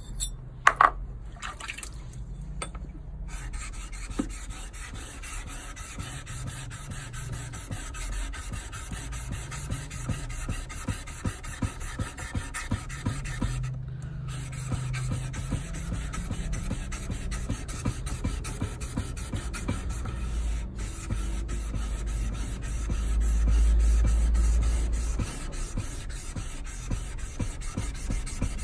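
Steel hand plane blade rubbed back and forth flat on a flat abrasive plate with slurry: a continuous gritty scraping made of rapid repeated strokes, as the blade's back is flattened and checked. Two sharp clicks come near the start, and a low rumble swells briefly near the end.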